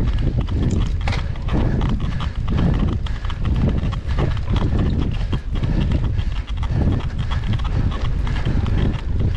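Irregular knocking like a horse's hoofbeats over a steady low rumble.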